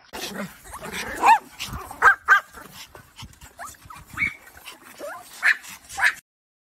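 Pomeranians barking in a string of short, high yaps that come in irregular bursts. The barking cuts off suddenly near the end.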